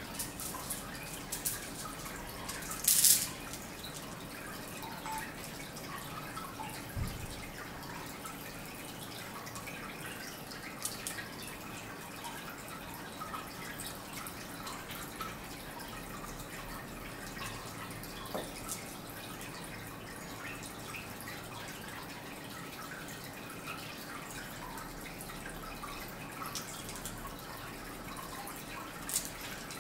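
Faint, steady trickle of water with scattered drips, and a few light clicks, the sharpest about three seconds in.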